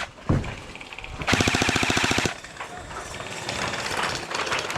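Gel blaster firing a burst on full auto: a rapid, even rattle of shots lasting about a second.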